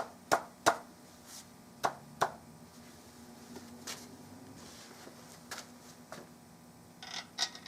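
Sharp clicks and knocks of metal rifle parts (bottom metal and barreled action) being handled and seated in a walnut gun stock. There are three quick clicks in the first second, two more about two seconds in, a few fainter ones, then a quick cluster near the end.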